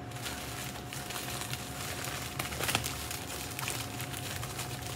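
Packaging rustling and crinkling as a parcel is handled and dug into, with a cluster of sharper crackles about two and a half seconds in.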